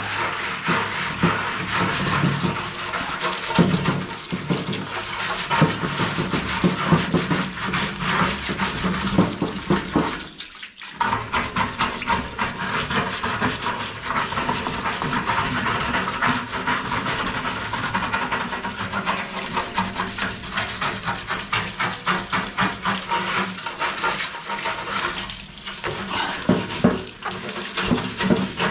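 A toothbrush scrubbing the grid-like plastic cells of washing-machine parts with rapid back-and-forth strokes, over running water. The scrubbing pauses briefly about ten seconds in.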